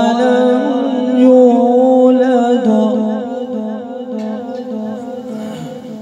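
A man's voice in melodic Qur'an recitation, holding one long drawn-out note with wavering ornaments, amplified through a microphone; it fades away over the second half.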